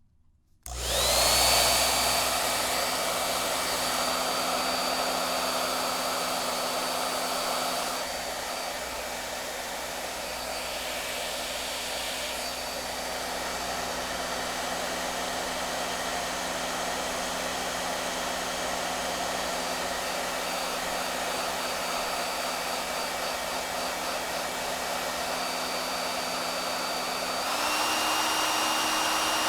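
Hair dryer switched on, whirring up to speed with a steady rush of air and a high motor whine. About eight seconds in it settles slightly quieter, and near the end it steps up to a higher, louder setting.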